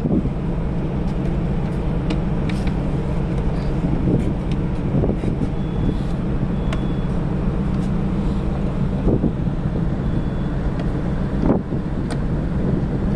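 Steady low rumble of wind buffeting the microphone on a ship's open deck, with a few faint clicks and taps as hands press and fasten the plastic EPIRB casing in its bracket.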